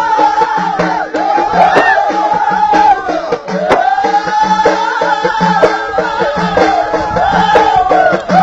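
Ahidous music: voices chanting a repeated, arching melodic phrase over the steady beat of bendir frame drums.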